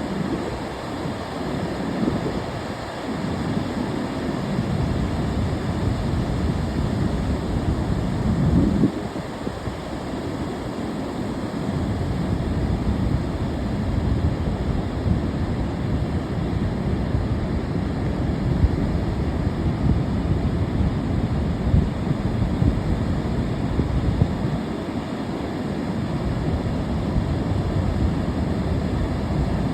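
Ocean surf breaking and washing ashore in a continuous rush, with wind buffeting the microphone. The rush swells to a peak about nine seconds in and drops off sharply, then builds again.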